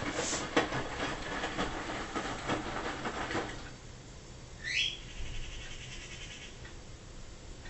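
Front-loading washing machine drum tumbling laundry, a dense churning noise full of knocks, which drops away about three and a half seconds in as the drum pauses. About a second later comes a short, high, rising squeak, then a faint steady high tone for about two seconds.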